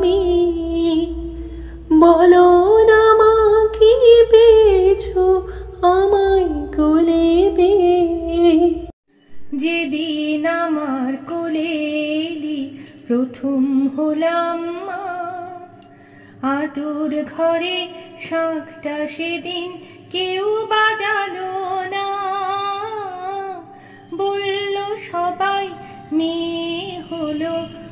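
A woman singing a slow melody. About nine seconds in, the singing breaks off for a moment and resumes, and the low hum beneath the first part is gone.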